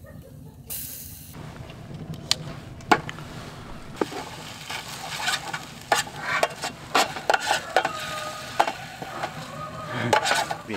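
Minced garlic sizzling in butter in a stainless steel mess tin over a gas burner, with a spatula scraping and clicking against the metal as it is stirred. The scraping gets busier from about four seconds in.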